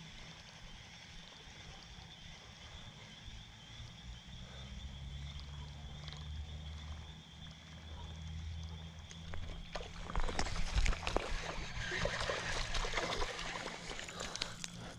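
Water splashing and sloshing, starting about ten seconds in and lasting several seconds, as a small fish hooked on a Whopper Plopper topwater lure is brought in at the bank.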